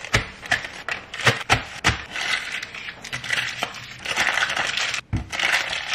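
Crumpled paper receipts being handled, unfolded and flattened, crinkling and rustling. Sharp separate crackles at first, then denser rustling from about two seconds in, with a brief pause near the end.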